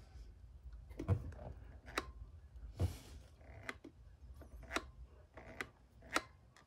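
Scattered short plastic clicks and taps, about seven spread over several seconds, from fingers working the sticks and case of a FrSky Taranis radio transmitter, with a brief soft hiss near the middle.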